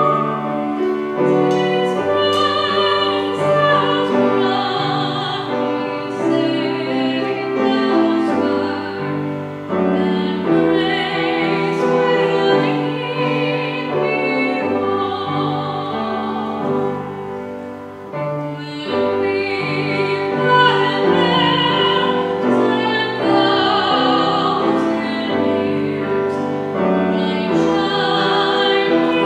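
A solo voice sings slow, held notes in a classical style with vibrato, accompanied by keyboard.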